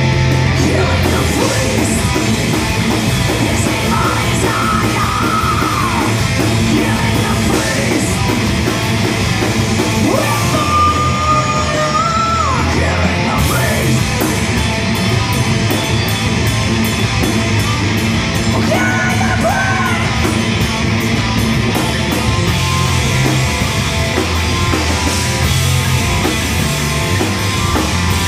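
Live heavy rock band playing: electric guitar, bass guitar and drums, with a singer's shouted vocals over the top.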